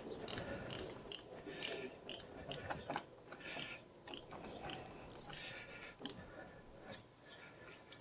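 Hand screwdriver driving a screw into a door lock actuator, its ratchet clicking a few times a second as the screw is tightened.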